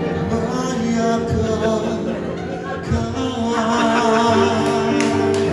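A man singing a song into a microphone with piano accompaniment.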